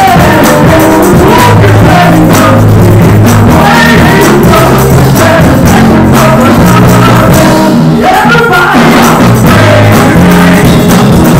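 Live gospel music, very loud: a vocal group singing into microphones over a steady bass line, drums and tambourine.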